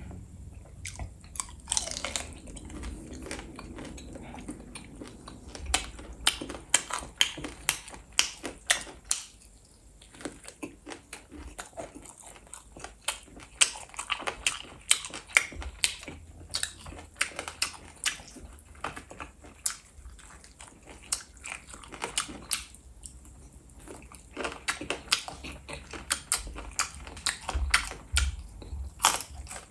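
A person eating chicken feet: wet chewing and sucking with many short, sharp mouth clicks and smacks, coming in runs with brief pauses.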